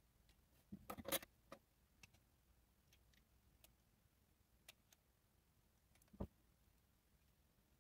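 Faint scattered clicks and taps over near-silence: a short cluster of clicks about a second in, a few faint ticks, and a soft knock near the end.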